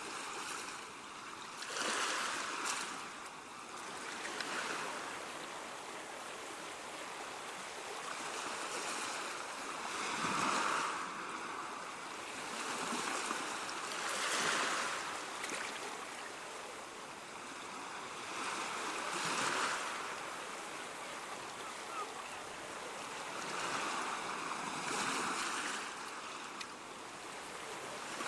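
Ocean waves breaking and washing on the shore, a steady hiss that swells as each wave breaks, about every four to five seconds.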